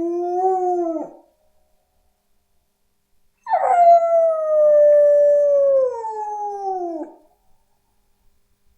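A dog howling: one howl trails off about a second in. After a pause a second long howl begins, holds its pitch for a few seconds and then slides downward as it fades out.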